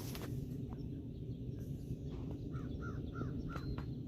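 A bird calls four times in quick succession about two and a half seconds in, over a steady low rumble of background noise.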